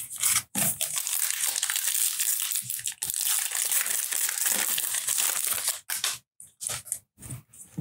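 Foil wrapper of a 2018 Stadium Club baseball card pack crinkling and tearing as it is ripped open by hand, with a few brief rustles near the end.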